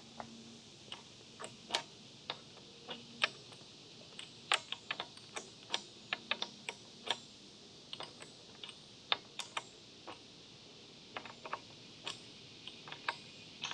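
Light, irregular clicking from a Honda CBR650R's drive chain as it is moved along, about two or three clicks a second. The chain is slack, real loose.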